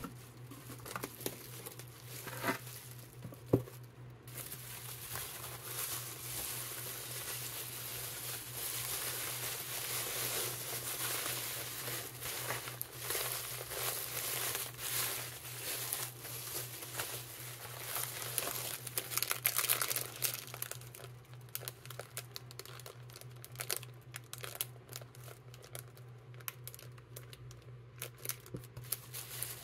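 Bubble wrap and clear plastic bags crinkling as they are handled and unwrapped by hand. There are a couple of sharp clicks in the first few seconds, then dense crinkling through the middle that thins to scattered crackles in the last third.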